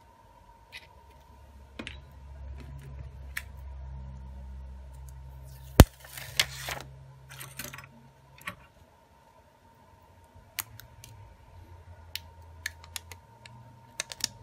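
Small clicks and taps from smartphone parts being handled on a silicone repair mat, with one sharp click about six seconds in followed by about a second of plastic rustling. A faint steady hum runs underneath.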